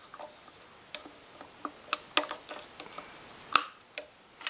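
Scattered light metallic clicks and taps, about seven, from hands and a tool working on a Puch Maxi moped engine's crankshaft end and casing. The loudest click comes about three and a half seconds in.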